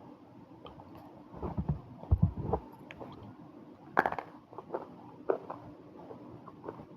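Pieces of crunchy red multani mitti (baked Fuller's earth clay) being bitten and chewed close to the microphone: irregular crunches, the sharpest about four seconds in, followed by smaller crackles.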